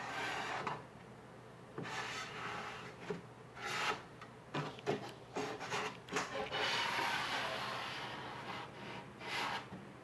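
Sandpaper rubbed by hand over wood in slow, uneven strokes, with short pauses between them.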